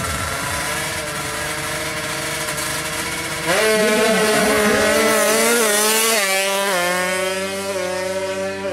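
Two-stroke 155cc drag bike engine running, then revving much louder from about three and a half seconds in, its pitch wavering and stepping up and down a few times.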